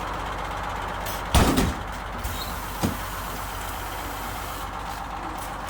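1958 GMC PD-4104 Greyhound bus's two-stroke Detroit Diesel engine idling steadily, with one loud bang about a second and a half in and a lighter knock about a second and a half later.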